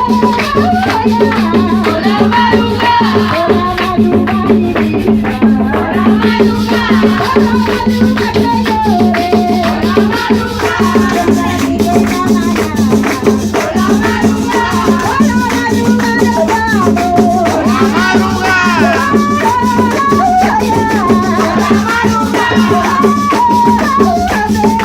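Tuna ensemble music: a wavering melody line over steady shaken percussion.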